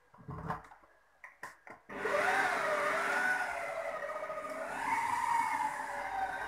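A few light clicks at the control knob, then about two seconds in an electric stand mixer starts and runs steadily, its motor whine rising and falling as the dough hook kneads stiff brioche dough with freshly added flour.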